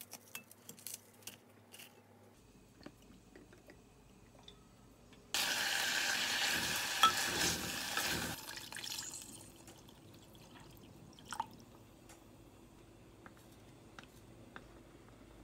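Beef brisket sizzling as it is browned in a hot earthenware pot and stirred with a wooden spatula. The sizzle starts suddenly about five seconds in and fades out after about three seconds, with light taps and clicks before and after.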